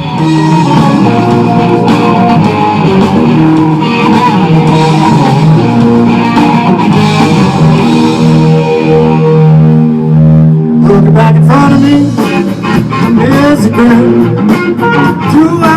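Rock song with guitar and singing. Held notes give way, about eleven seconds in, to a busier passage with percussive hits and a sung line.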